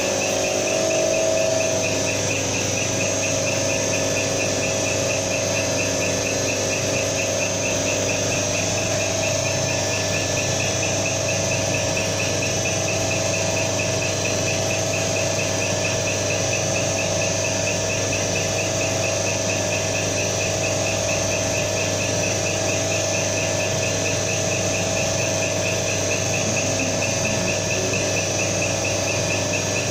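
Common-rail diesel test bench running a calibration cycle: a steady motor-and-pump hum from the drive turning the high-pressure supply pump, with fast, even ticking from the injectors firing on the rail.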